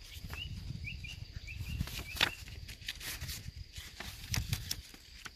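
Paper user manual being handled and its pages turned, with crisp rustles and crackles and a sharp snap about two seconds in. A bird chirps a quick run of short notes during the first two seconds.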